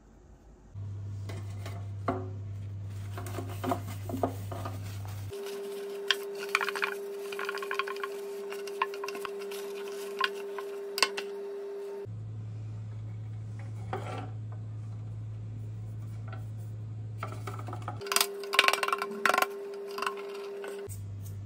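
Metal loaf pan being handled on the worktop: rubbing as a paper towel greases its inside, with small clicks, then a cluster of sharp taps and knocks near the end as flour is shaken around the pan. A steady low drone that shifts between two pitches runs underneath.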